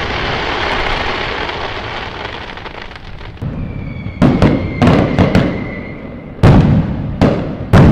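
Fireworks going off: a crackling, fizzing trail fades over the first few seconds, then a quick run of sharp bangs begins about four seconds in, with a thin whistling tone over it. Louder bangs follow near the end.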